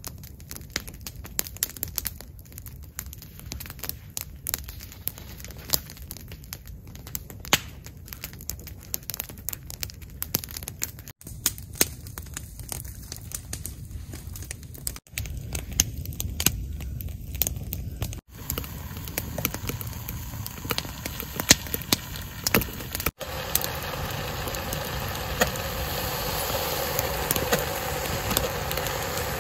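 Wood campfire crackling and popping, with sharp snaps throughout. In the last third a louder, steady rushing sound joins in as a Kelly Kettle burns hard, flames shooting out of its chimney.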